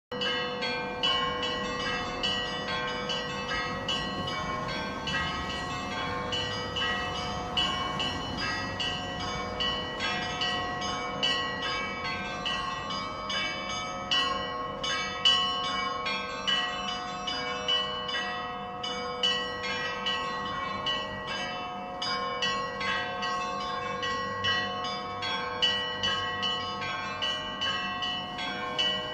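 Church bells ringing: several bells struck in quick, uneven succession over a steady ringing hum that carries on throughout.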